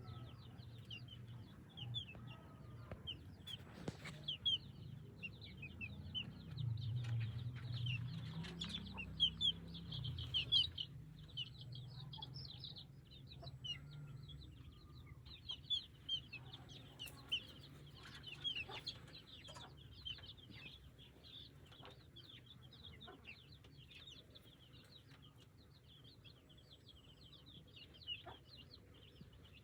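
Chickens: a hen clucking low, loudest about six to ten seconds in, while small chicks peep in quick, high chirps throughout, with a few sharp taps between them.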